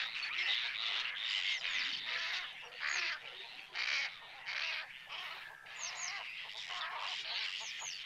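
A large mixed flock of waterbirds calling together: a dense, continuous chorus of many overlapping calls, some sweeping quickly in pitch.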